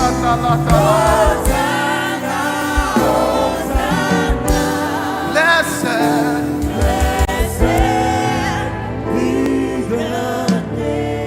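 Live gospel worship music: a choir singing over a band, with sustained bass notes and drum hits underneath.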